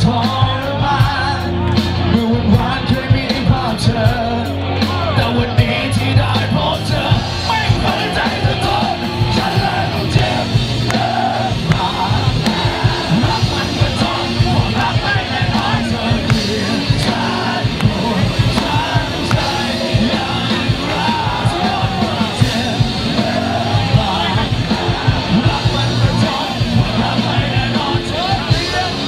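Live rock music: a band with a steady drum beat and a male lead singer singing loudly through the PA.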